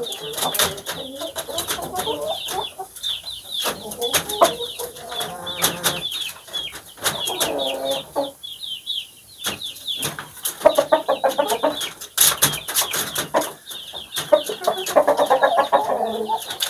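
Chickens clucking and calling, with longer calls several times, over a steady run of short, falling high chirps.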